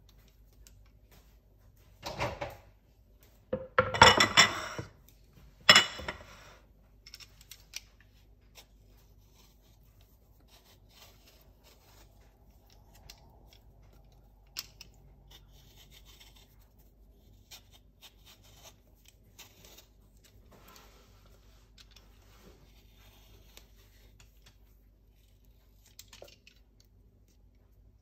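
A few loud clatters and knocks on the counter in the first six seconds. After that, the faint scraping and clicking of a Y-shaped vegetable peeler taking the skin off a ripe peach.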